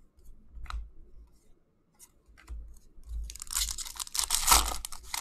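Foil wrapper of a 2018-19 SP Authentic hockey card pack being torn open and crinkled: a dense crackling tear that starts about three seconds in and is loudest near the end. Before it come a few light taps of cards being handled.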